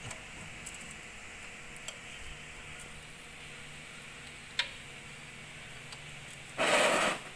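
A spanner working a bolt on the underside of a Zontes 310T motorcycle engine during an oil service: a few faint metallic ticks, then near the end a short, loud noisy burst of metal-on-metal as the bolt is run tight.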